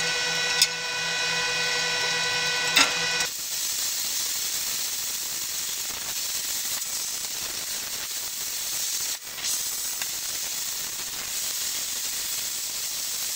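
YesWelder plasma cutter's torch hissing steadily as its arc cuts through steel plate, starting about three seconds in, with a short break near the middle. Before the cut starts there is a steady machine hum with two sharp clicks.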